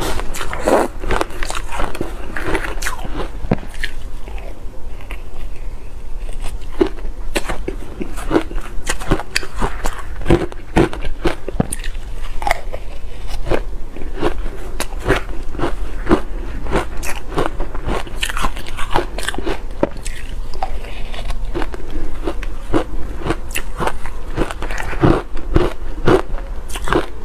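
Crushed bar ice dusted with matcha powder being bitten and chewed close to the microphone: a dense, irregular run of sharp crunches.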